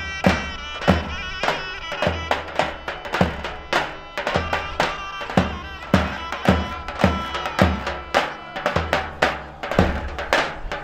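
Traditional Thracian wedding music: a sustained reedy wind-instrument melody over a heavy, steady drum beat of about two to three strokes a second.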